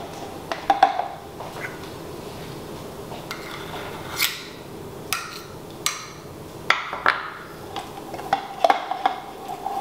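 Shortening being scooped and scraped into a metal measuring cup with a spoon: scattered scrapes, taps and a few short metallic clinks.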